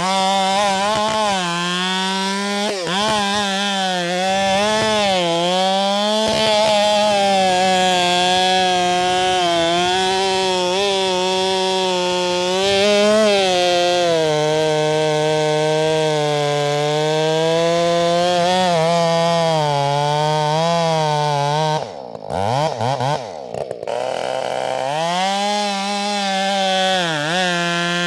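Husqvarna 572XP two-stroke chainsaw with a 24-inch bar running at high revs while cutting through a large pecan trunk, its engine pitch wavering as it loads and recovers in the cut. About 22 seconds in it drops off briefly, the pitch sliding down and back up, then it runs on steadily.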